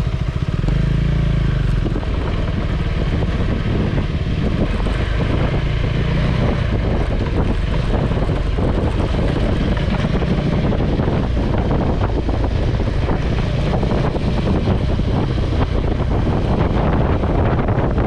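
A KTM 390 Adventure's single-cylinder engine running as the motorcycle rides along, mixed with wind rushing over the microphone. It is loud and steady throughout.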